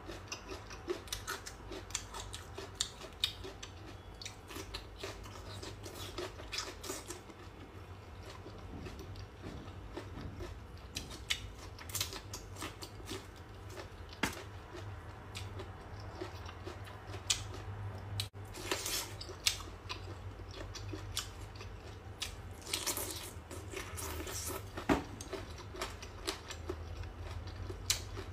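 A person chewing crunchy food close to the microphone, a green chili pepper bitten from the chopsticks: irregular crunches and wet mouth clicks throughout, over a steady low hum.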